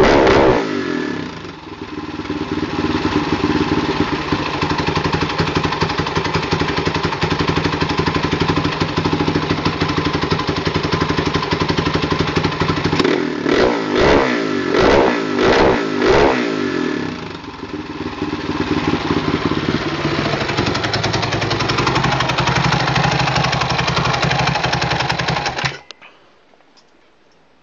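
Husqvarna 610 supermoto's single-cylinder four-stroke engine running on the stand: a few quick throttle revs at the start, steady running, four more quick revs around the middle, then it cuts out abruptly near the end. The carburettor is being checked because the engine seems held back and dies out.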